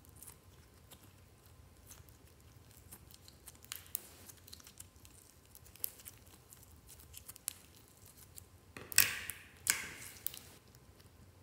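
Clear slime being squeezed and folded by hand, with faint sticky clicks and crackles. A few louder squelching pops come about nine seconds in, as air is pressed out.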